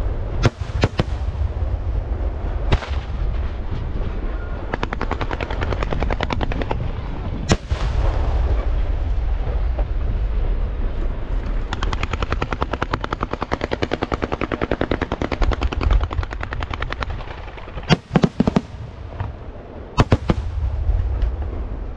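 Aerial fireworks going off: sharp bangs of shells bursting, with long stretches of fast crackling reports a few seconds in and again from about twelve seconds in, and a cluster of loud bangs near the end.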